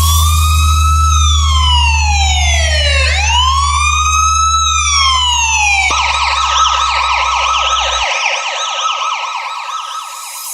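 Electronic police-style siren: two slow wails, each rising and falling over about three seconds, then switching to a fast warbling yelp about six seconds in. A steady low hum runs underneath and cuts off about eight seconds in.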